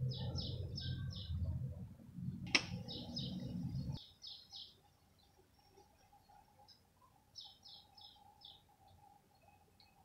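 A bird calling in quick runs of about four high, harsh chirps, three runs in all. A low rumble runs under the first four seconds and cuts off suddenly, with one sharp click a little past two seconds in.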